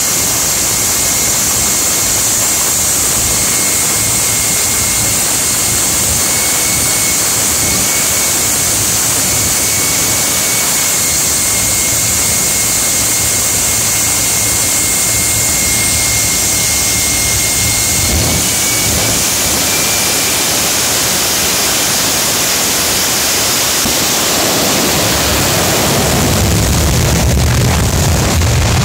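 Jet engine of a jet-powered Kenworth drag truck running loud and steady: a dense rushing noise with a thin high whine on top. The whine fades out about two-thirds of the way through, and a deep rumble grows louder over the last few seconds.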